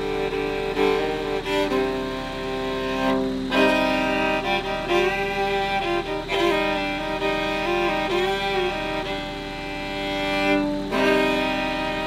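Instrumental background music: a slow string melody of long held notes.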